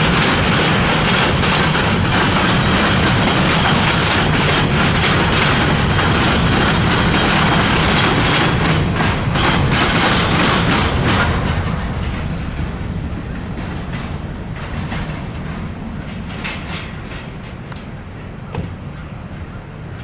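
Freight train's covered hopper cars rolling past on steel wheels: a loud, steady rumble with a few sharp wheel clacks near the middle, then fading as the end of the train moves away.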